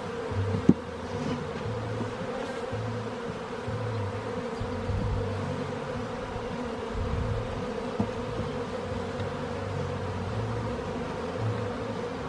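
Honeybees buzzing in a steady hum around an opened hive during a frame-by-frame inspection, with a couple of sharp clicks, about half a second and eight seconds in.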